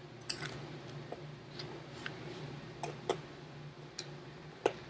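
A few faint, scattered clicks and taps from the kit's cards and book being handled.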